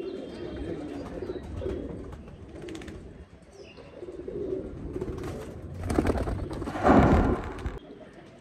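Pigeons cooing with low, repeated warbling coos. About six seconds in comes a loud fluttering rustle lasting a second or so, as a squab is let go from the hands.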